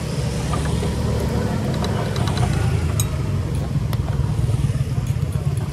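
Steady low rumble of passing street traffic, with a few light metallic clicks from a spatula working against a small crepe pan a couple of seconds in.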